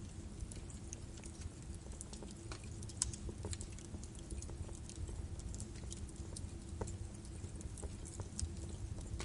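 Birch wood fire burning in a fireplace: irregular sharp crackles and pops over a steady low rumble of the flames, with a louder pop about three seconds in.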